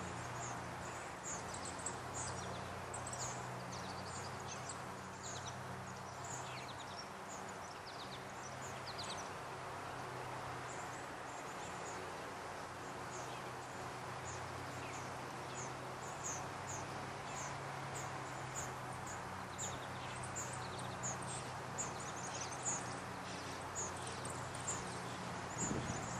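Many short, high chirps from small birds, scattered throughout, over a steady low hum and outdoor background noise. A louder burst of noise comes right at the end.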